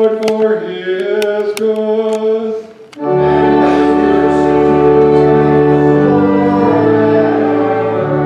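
Congregation singing a hymn with pipe organ accompaniment. About three seconds in, the music breaks off briefly, then the organ sounds long, steady held chords that change twice.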